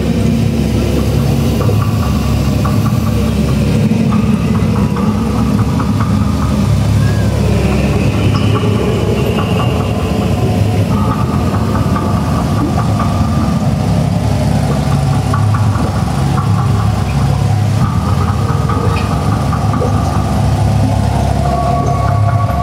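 A vehicle engine running steadily under the rolling metal fish float, a continuous loud low rumble with a hum over it.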